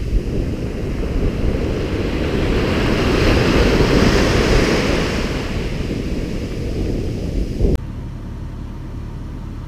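Ocean surf breaking on the beach, with wind buffeting the microphone; the surf builds to its loudest as a wave crashes about halfway through. It cuts off suddenly near the end, leaving a quieter steady low rumble.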